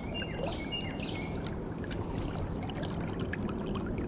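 Flowing creek water trickling and lapping, a steady wash with small scattered ticks and splashes.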